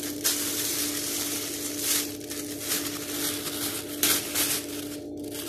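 Plastic oven bag crinkling and rustling as it is torn open, in irregular crackly bursts, over a steady low hum.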